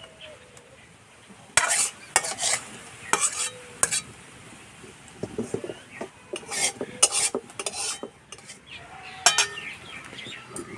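Metal kitchen pot and bowl knocking and clinking, with short scraping clatters, as freshly curdled chhana is poured and strained through a cloth. The clatters come in scattered bunches, most of them between about 1.5 and 4 seconds in and again around 7 seconds.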